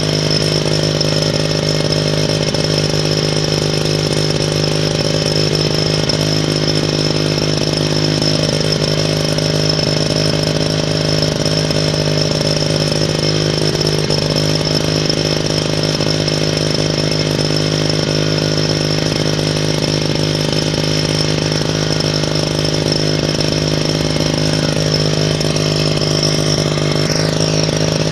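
Small two-stroke engine of a Victa knapsack power sprayer running steadily at a constant speed, an even buzz.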